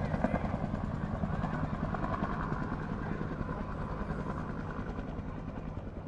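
Bell UH-1 'Huey' helicopter, its two-bladed main rotor beating in a rapid, even rhythm over the turbine's running noise, gradually growing fainter.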